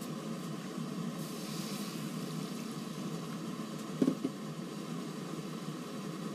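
Water in a wok on a gas stove heating toward the boil: a steady faint hiss with bubbling, and two brief knocks about four seconds in.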